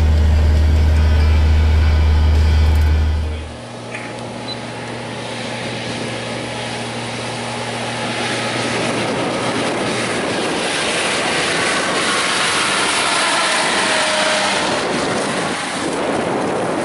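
Steady low engine drone heard from inside a tractor cab beside a forage harvester chopping corn silage, cut off about three seconds in. Then the outdoor engine and running noise of a JCB Fastrac tractor pulling a loaded silage wagon across corn stubble, growing louder as it comes closer.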